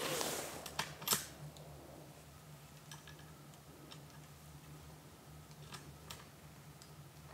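The tail of a rifle shot echoing and dying away, then the rifle's bolt being worked: a few sharp metallic clicks about a second in, and fainter clicks after.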